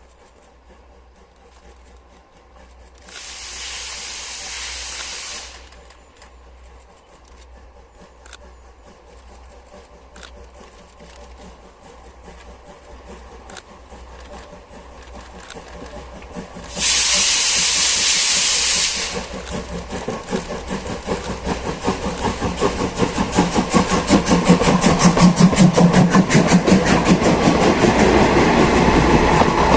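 Steam locomotive C58 239 of the SL Ginga approaching. It gives two long hissing blasts of steam a couple of seconds each, then its rapid exhaust beats grow steadily louder as it nears.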